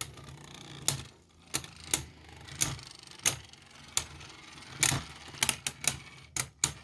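Two spinning Beyblade tops, a 3D-printed Toxic Rose and a Boom Khalzar, clashing: sharp plastic clacks at irregular intervals about every half second to second, coming faster near the end, over a low steady whir of the spinning tops.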